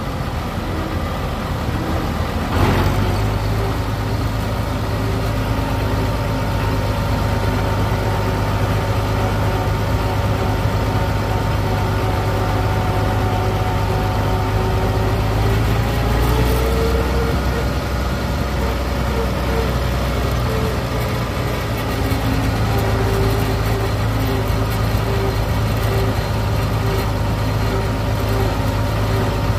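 Farm tractor engine running steadily as the tractor drives along, heard from the driver's seat, a low drone with a stack of engine tones. About two and a half seconds in it grows louder, and around sixteen seconds the pitch rises briefly and then settles back.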